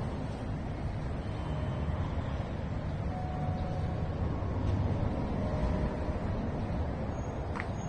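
Traffic on the elevated Meishin Expressway overhead: a steady, low rumble of passing cars and trucks.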